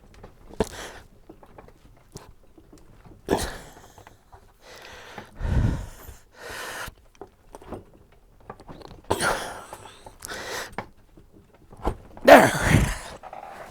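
Coax crimping tool being squeezed hard onto a connector's ferrule: scattered handling noises and several breathy bursts of effort, the loudest near the end.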